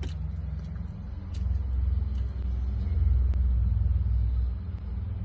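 Low, steady rumble of a car heard from inside the cabin, growing louder about one and a half seconds in.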